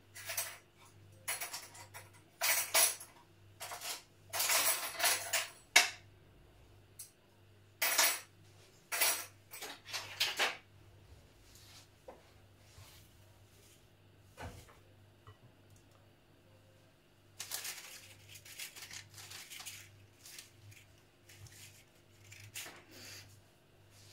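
A spatula and spoon scraping and clinking against a glass bowl as sticky chocolate-coated puffed rice is stirred and scooped. The sound comes in irregular bursts, with a quiet pause in the middle.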